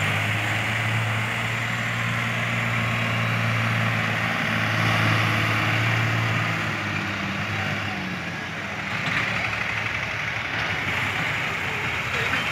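Diesel engines of several New Holland tractors running while levelling and ploughing a field: a steady low engine drone that fades about seven seconds in, leaving a broader, more distant engine noise.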